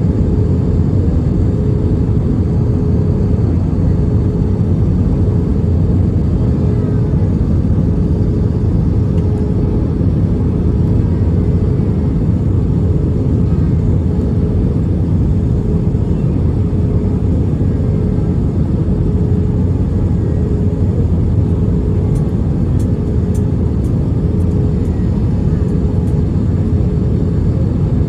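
Cabin noise of an Airbus A320 in flight: a steady roar of engines and airflow with a steady hum running through it.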